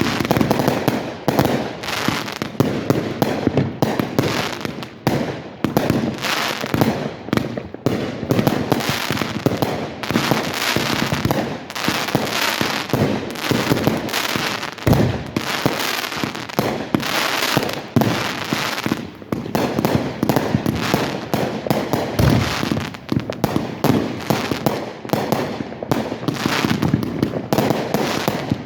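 Aerial fireworks bursting in rapid succession, a dense, continuous barrage of bangs and crackling.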